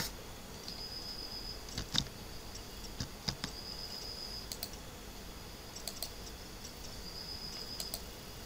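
Scattered faint clicks from someone operating a computer, a few seconds apart, over quiet room noise. A faint high-pitched steady tone comes and goes three times.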